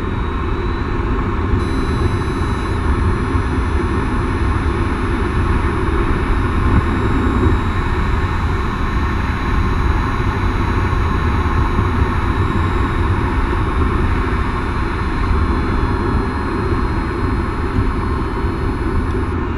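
Steady road and tyre rumble with air rushing past, heard from under a BMW rolling at low speed on electric power only, with no engine running.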